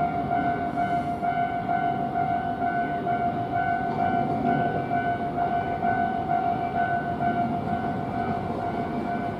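Japanese level-crossing alarm bell ringing in an even, rapid repeating pattern, with a train running past the crossing underneath it.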